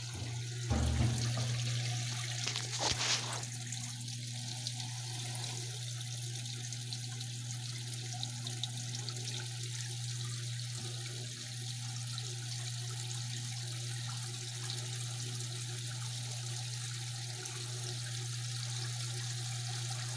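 Frigidaire 1-18 washer running with the lint filter out, its recirculation pump jetting water back into the tub: steady splashing and pouring water over a steady low hum. A few short knocks in the first three seconds.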